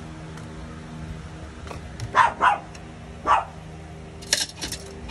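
A small dog barking in the background: a few short, sharp barks about two to three seconds in, over a steady low hum. Near the end a few quick clicks and scrapes of a spatula against the pan.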